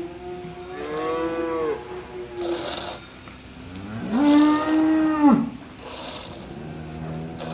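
Cattle mooing: two drawn-out calls that rise and fall in pitch, the second louder, with a lower, steadier moo starting near the end.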